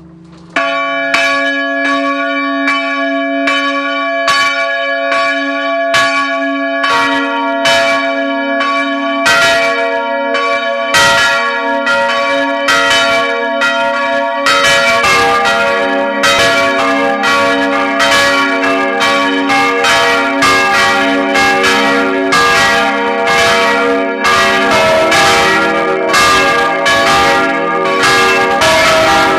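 Four-bell full peal of church bells: three baroque bronze bells cast in 1788 and a small one from 1988. One bell starts striking suddenly about half a second in, and the others join one after another until, about fifteen seconds in, all four ring together with a low hum beneath the strokes.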